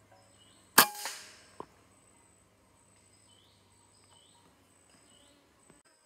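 PCP air rifle firing a single shot: a sharp crack with a brief metallic ring, followed by a short click less than a second later. Faint repeated chirps and a thin, steady high insect tone sit underneath.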